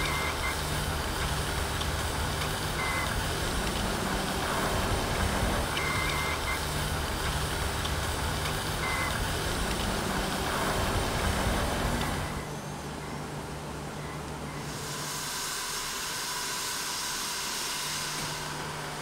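Narrow-gauge steam locomotives standing under steam: a steady hiss of steam over a low, even hum. About twelve seconds in the sound drops a little and the hiss briefly dies away, then it comes back.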